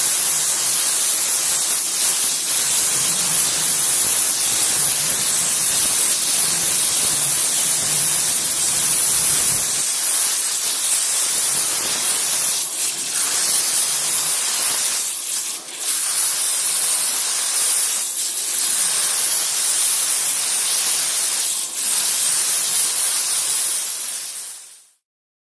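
CNC water jet cutting head spraying its ultra-high-pressure stream, a loud steady hiss that dips briefly a few times and cuts off suddenly near the end.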